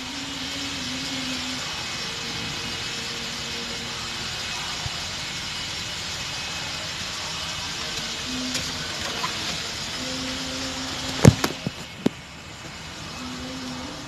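Steady background hiss with a faint hum that comes and goes. Two sharp knocks close together about eleven seconds in, then a third a second later.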